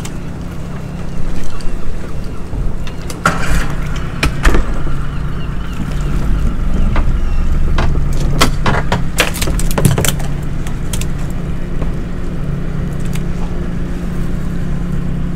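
Small outboard motor idling steadily. Sharp knocks and clatters from gear being handled in the boat come between about three and ten seconds in.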